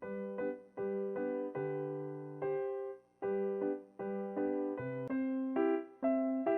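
Background piano music: a melody of struck notes, each dying away, with a brief pause about three seconds in.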